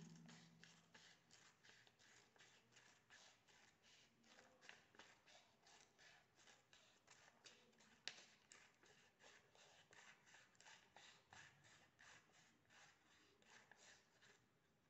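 Faint snipping of small scissors cutting a spiral into a white paper circle, about three or four snips a second, with one sharper snip about eight seconds in.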